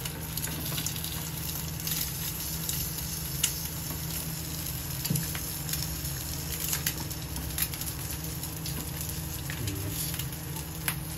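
Eggs sizzling and crackling in hot ghee in a small aluminium frying pan, with scattered sharp pops and the light scrape and tap of a steel spoon working the egg.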